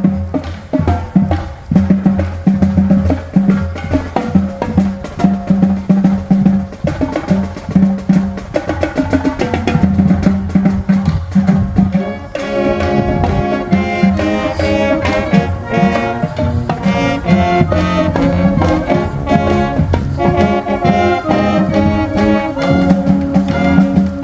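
Marching band playing outdoors: the drumline carries a steady beat on its own for about the first half, then the brass and wind section comes in with sustained notes over the drums.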